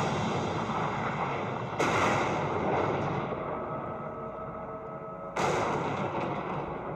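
Two heavy booming hits in a martial-arts film's soundtrack, about three and a half seconds apart. Each one rings on and dies away slowly.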